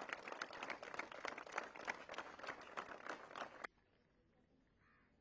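Audience applause with many sharp individual claps, which cuts off suddenly about three-quarters of the way through, leaving near silence.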